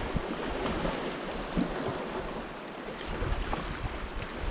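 Steady wind on the microphone over sea washing against a rocky shore, with a few faint small clicks.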